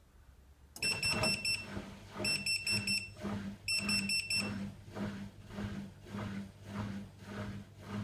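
Siemens washing machine sounding its fault alarm for error F57, a motor control board or motor fault: three quick bursts of rapid high-pitched beeps. A low humming pulse about three times a second follows and runs on.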